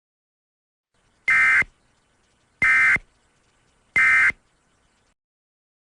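EAS SAME end-of-message data bursts: three short, identical bursts of harsh, buzzing data tones, about a second and a third apart, marking the end of the emergency alert.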